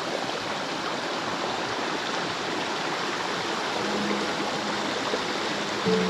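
A river running steadily, an even rush of flowing water over rocks.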